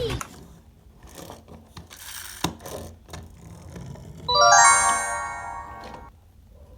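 A bright, many-toned electronic chime, like a doorbell ding, strikes about four seconds in and rings out for a second or so. Before it come a few faint clicks, and at the very start a falling whistle-like sound effect dies away.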